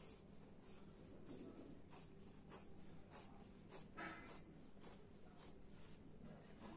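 Scissors cutting through folded layers of fabric: faint, crisp snips at a steady pace of a little under two a second.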